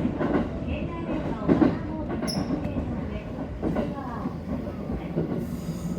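Yokosuka Line electric train running along the track: a steady low rumble of wheels and running gear, with a brief high squeal about two seconds in.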